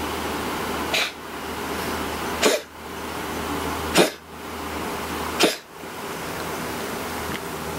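A house cat coughing four times, about a second and a half apart, each a short, sharp hack. The owner puts the cough down to a slight cold.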